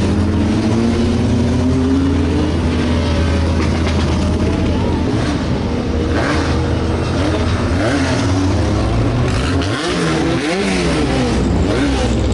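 Historic open-wheel single-seater race cars accelerating past one after another, engines revving hard. The pitch climbs and falls again and again, with quick up-and-down sweeps in the later part.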